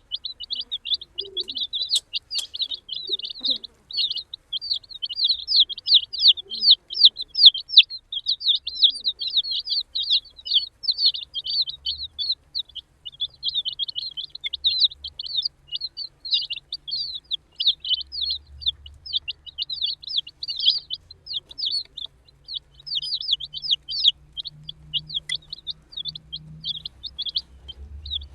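A group of baby chicks peeping continuously: many short, high chirps overlapping without a break.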